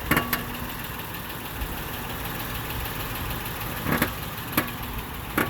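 A 2007 Honda Odyssey's 3.5-litre V6 idling steadily, with several sharp clunks: a pair right at the start and three more from about four seconds in. The clunks are the noise the van makes when its steering wheel is turned.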